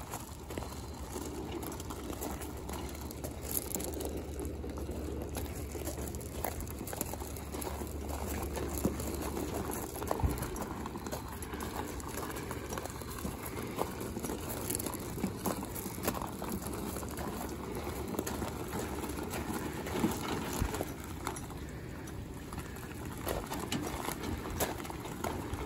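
Small tyres of a two-wheel tow dolly and a utility trailer rolling over loose gravel: a steady crunching with many small clicks of shifting stones. A low hum sits underneath for the first ten seconds or so.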